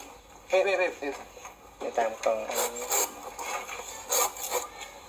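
Voices in short bursts, with scraping and a few sharp knocks in the second half.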